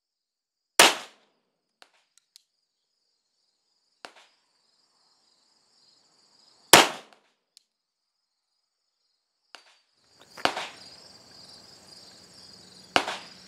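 Single shots from a 9mm Glock 19 pistol, fired several seconds apart. The two loudest come about a second in and near the middle, with weaker sharp reports later. Insects chirp steadily toward the end.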